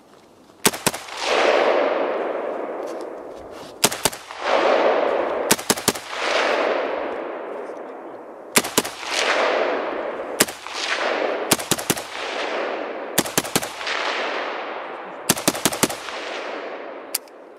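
Saiga MK03 semi-automatic rifle in 7.62×39 mm firing about twenty rounds in quick singles, pairs and triples a second or two apart. Each string is followed by a long rolling echo. The report is made extra loud by a modified AK103 muzzle brake.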